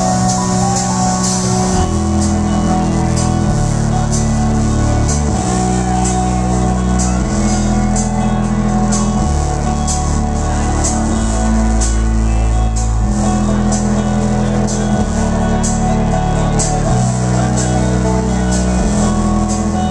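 Live rock band playing loud, with a heavy bass line that shifts note every second or two under a steady beat.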